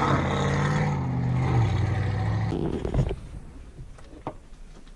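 Pickup truck engine running steadily, dropping in pitch once before cutting off abruptly about three seconds in. After that come quieter indoor handling noises with a couple of sharp clicks.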